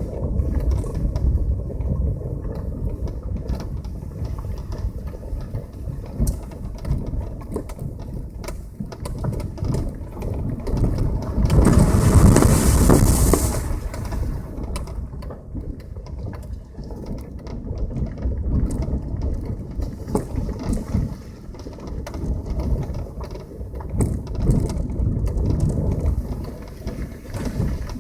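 Passenger car driving: a low rumble with many short knocks and rattles, and a louder rushing noise lasting about two seconds around the middle.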